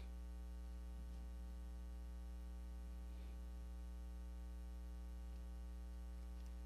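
Steady electrical mains hum in the sound system, a low buzz with many evenly spaced overtones, with a few faint rustles of Bible pages being turned.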